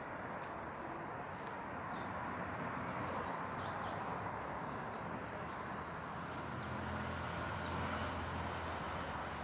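Birds chirping in short high calls, a cluster a few seconds in and one more near the end, over a steady rushing background noise and a faint low hum that swells in the second half.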